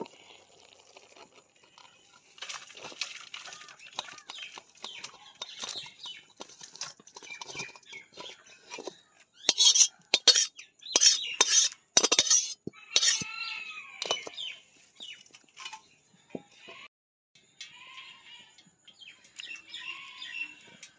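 Boiled cabbage being drained: cooking water poured off from a metal wok into a steel colander, then the cabbage scraped out, with the wok rim and spatula knocking and scraping against the metal in a run of sharp clanks about midway.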